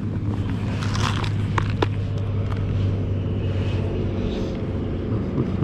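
Steady low motor hum, with a few light clicks and taps about one to two seconds in.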